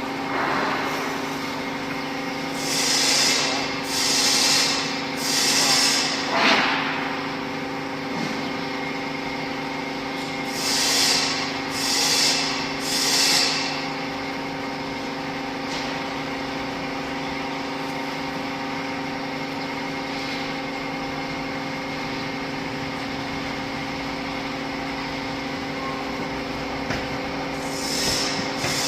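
Hydraulic bagging baler running, its motor and pump giving a steady hum. Short hissing swooshes come in groups of three, about a second apart: once a few seconds in and again about eleven seconds in.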